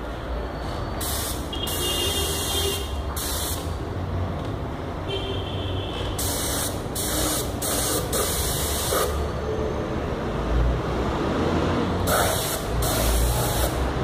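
Paint spray gun hissing in about a dozen short on-off bursts of air and paint, fed by a homemade air compressor whose motor keeps up a steady low hum underneath.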